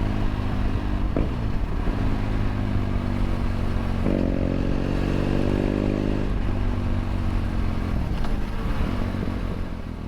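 BMW F800 GS parallel-twin engine running through a LeoVince LV One Evo stainless exhaust, heard onboard while riding. About four seconds in the throttle opens and the exhaust note grows louder and brighter for a couple of seconds, then eases back to a steadier cruise.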